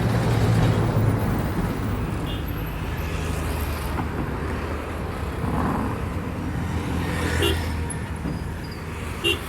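Road traffic: motor vehicles passing close by with a steady engine hum, loudest in the first second or so, its pitch dropping lower partway through.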